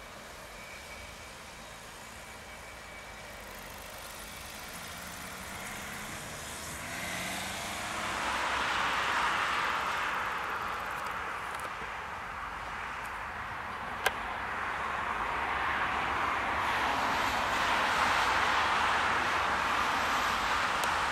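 A car goes by on the road beside the railway, its noise swelling and then easing in the middle. Then an electric locomotive-hauled train approaches on the line, its rolling noise building over the last several seconds.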